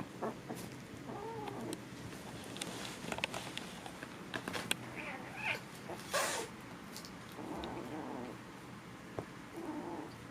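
Kittens play-wrestling, giving short wavering cries several times, with scattered light scuffs and clicks. A brief rushing noise about six seconds in is the loudest moment.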